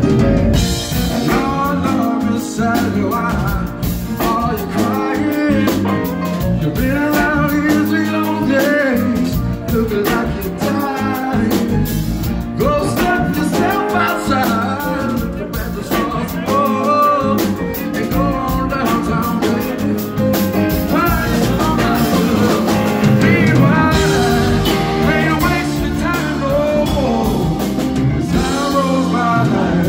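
A live funk band playing: electric guitar and keyboard over bass and drum kit, one continuous tune.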